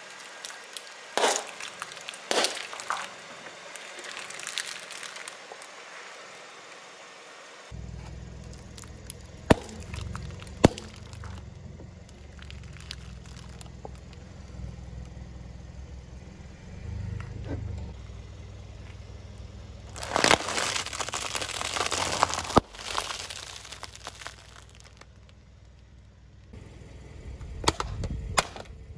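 A car tyre slowly rolling over and crushing plastic drink bottles and other plastic objects: a string of sharp cracks, snaps and crunching, with a dense run of crackling about two-thirds of the way through. A steady low rumble from the car runs under the later part.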